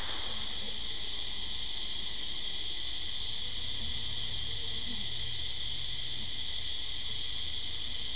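Steady shrill insect chorus, with a fainter higher chirping that pulses about once a second, over a low steady hum.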